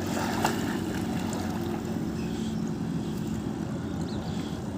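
Boat motor running steadily, with a short knock about half a second in.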